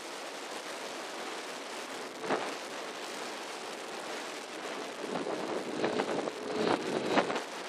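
Wind rushing over the microphone of a quad bike riding at about 60 km/h, a steady hiss of air and road noise. There is a single knock about two seconds in, and heavier buffeting gusts over the last few seconds.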